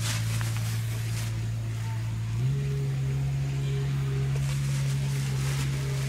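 An engine running with a steady low hum, its pitch stepping up slightly about two and a half seconds in.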